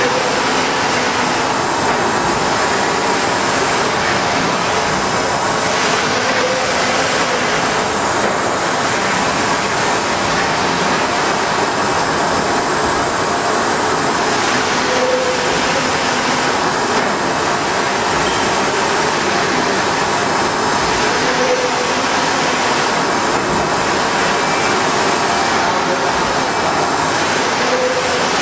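Large flatbed UV printer running while it prints: a steady, even machine noise with the print carriage and its UV curing lamp moving over the bed, and a faint short tone now and then.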